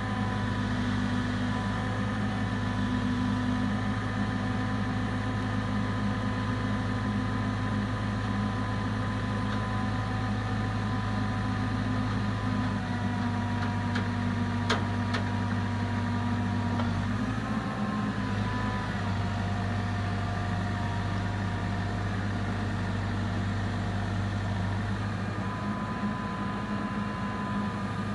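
Caterpillar TH460B telehandler's diesel engine running steadily while the boom is raised and extended, with a whine above it. The engine note and whine change pitch a few times as the boom hydraulics are worked.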